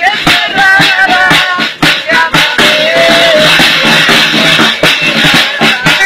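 Norteño band music: button accordion melody lines over guitar and a steady beat.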